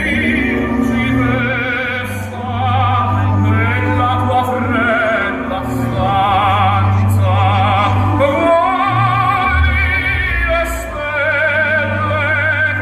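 Operatic singing with a strong vibrato, held notes sliding between pitches, over a sustained orchestral accompaniment with a steady low bass.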